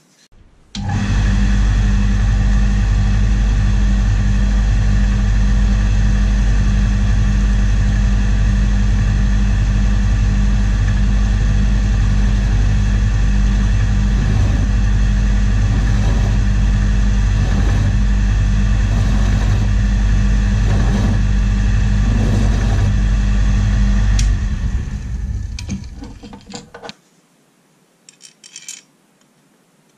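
Record Power ML-360 metal lathe running steadily with a deep hum, starting abruptly about a second in; after about 24 s it is switched off and spins down over two to three seconds. A few light clicks follow near the end.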